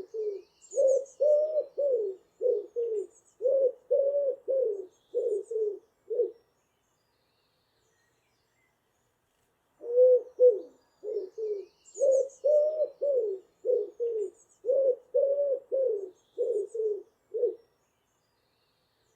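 Pigeon cooing: a run of short, low coos until about six seconds in, a pause of about three seconds, then another run of coos lasting about eight seconds. Faint high chirps of small birds sound behind the cooing.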